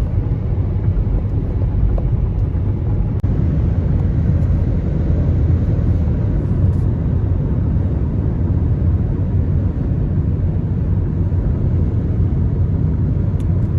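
Steady road and engine rumble inside a moving car's cabin, low and even throughout.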